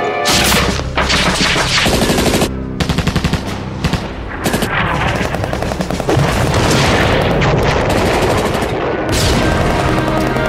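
Bursts of rapid automatic gunfire mixed over music that holds long steady tones, a battle soundtrack.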